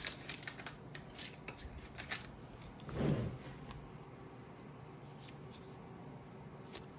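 Light plastic rustling, scraping and clicks as a trading card is handled and slid into a thicker plastic card sleeve, with a brief low sound about three seconds in.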